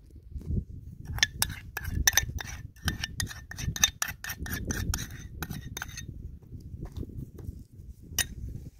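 A metal spoon clinking and scraping against a ceramic bowl as thick red pepper paste is scooped out and dabbed onto raw turkey pieces. The clinks come in a quick, uneven run for several seconds, with one more clink near the end, over a low rumble.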